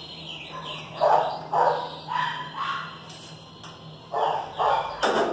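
A dog barking in short pairs, about seven barks, with a sharp knock near the end.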